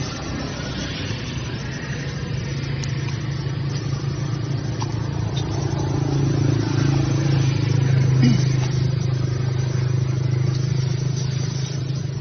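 A motor engine running with a steady low hum that grows louder for a few seconds around the middle, then eases off.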